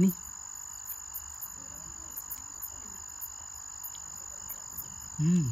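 Night crickets chirping steadily: a continuous high trill with short chirps repeating over it. A brief voiced hum near the end.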